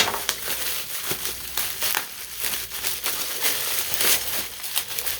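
Packaging material crinkling and crackling as it is handled and moved, a steady run of irregular crackles.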